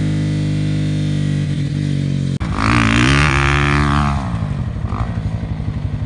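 Dirt bike engine held at steady revs. After a sudden break about two seconds in, the revs rise and fall, then it settles into a low, even pulsing putter.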